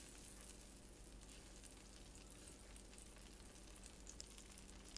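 Butter melting in a hot nonstick frying pan, sizzling faintly with a fine crackle.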